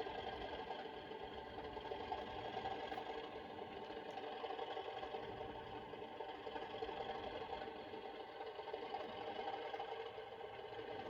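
Sound-fitted Accurascale Class 37 model diesel locomotive, its sound decoder playing the English Electric engine running steadily through the model's small speaker.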